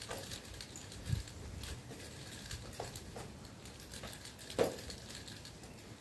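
A pair of nunchaku being swung and spun, giving scattered light clacks and swishes, with a louder clack about four and a half seconds in and a dull thump about a second in.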